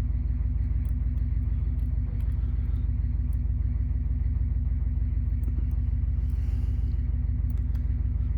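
Steady low electrical-sounding hum, with faint scattered clicks and a brief scrape of a hook pick and tensioner working the pins of a knockoff Bi-Lock padlock.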